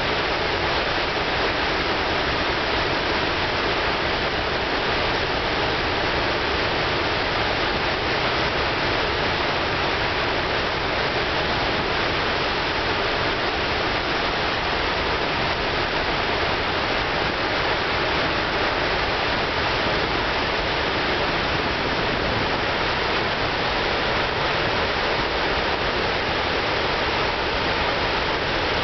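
Floodwater of the Androscoggin River pouring over the Great Falls: a loud, steady rush of fast-flowing water that does not let up.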